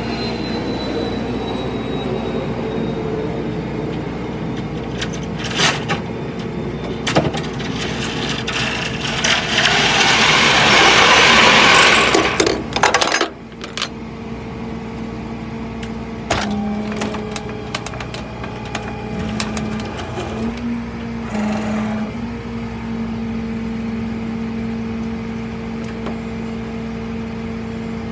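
A vehicle engine running steadily with an even hum, with scattered clicks and knocks, and a loud rushing hiss for a few seconds about ten seconds in.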